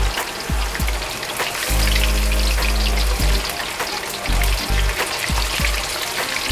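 Battered chicken pieces deep-frying in hot oil in a wok: a dense, steady crackle and sizzle of bubbling oil.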